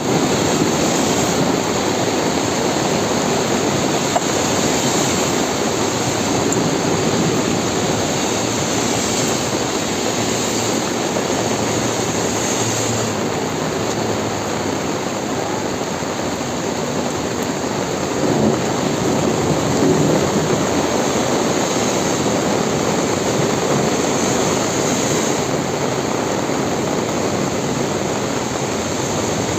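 Heavy rain pouring steadily, an even hiss with no break.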